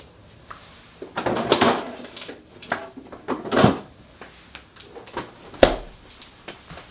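Dishes and utensils knocking and clattering as they are handled at the table: a few separate knocks and scrapes, the sharpest about three and a half and five and a half seconds in.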